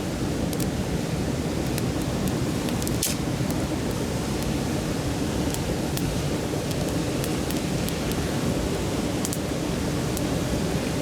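Mountain stream babbling steadily, with a wood campfire crackling over it in scattered small pops and one sharper snap about three seconds in.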